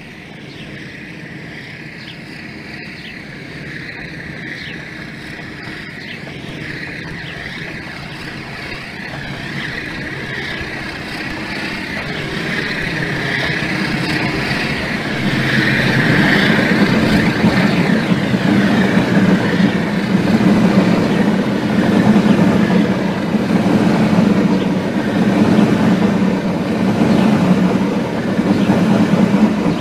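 An approaching train, its running noise and low engine hum growing steadily louder.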